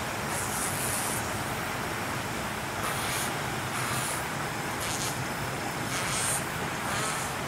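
Steady outdoor background noise, like distant traffic, with short high, hissy bursts about every second.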